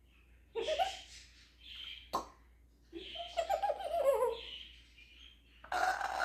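African grey parrot making short, laugh-like vocal sounds with bending pitch, in several bouts, with a sharp click about two seconds in.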